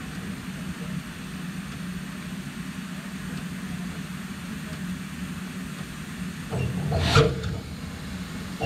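BR Standard Class 5 steam locomotive running, heard from the cab as a steady low rumble with a hiss. About seven seconds in the noise builds into a louder clatter with one sharp knock.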